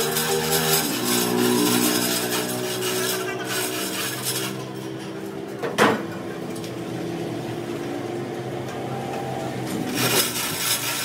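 A single sharp knock about six seconds in as the hanging steel trolley tube is struck with a white mallet. Behind it a workshop machine hums steadily, with a rasping, scraping noise that fades away partway through and returns near the end.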